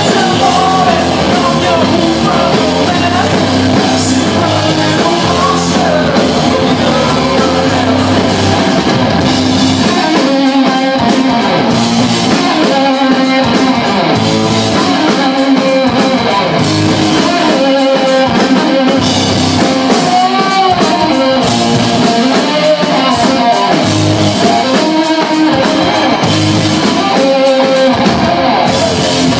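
Loud live rock band playing: a heavily distorted bass guitar riff driven by a drum kit, with sung vocals over it.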